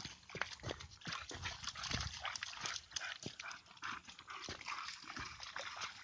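Dogs moving through brush: a dog panting, with many sharp crunches and rustles of paws and feet on leaves and twigs.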